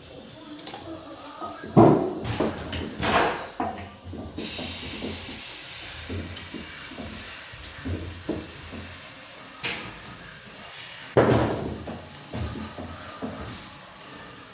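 Food sizzling in a hot pan, a steady hiss that sets in about four seconds in, with utensils clattering against pans and dishes a few times.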